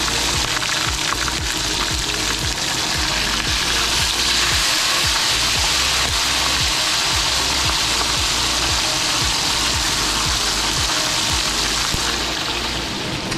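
Whole crappies and garlic cloves deep-frying in a skillet of hot oil: a loud, steady sizzle. It swells a few seconds in as a second fish is lowered into the oil with tongs, then eases near the end.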